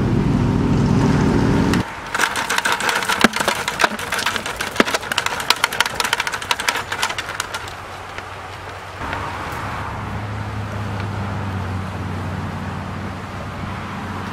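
Crayfish being emptied from a wire-mesh trap into a plastic bucket: about six seconds of quick, irregular clicking and rattling as shells and mesh clatter. Before it a loud steady low hum cuts off abruptly about two seconds in, and a quieter low hum runs on from about nine seconds in.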